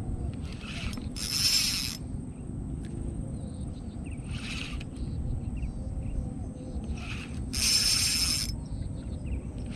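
Small spinning reel (Daihan Shinobi 1000) whirring in about four bursts of around a second each. The loudest bursts come a second and a half in and again near eight seconds in.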